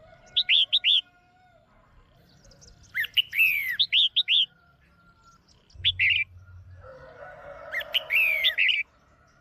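Red-whiskered bulbul, presented as a female, calling in four short bursts of quick chirping notes, several of them falling in pitch. It is the kind of female call used to rouse male bulbuls to sing.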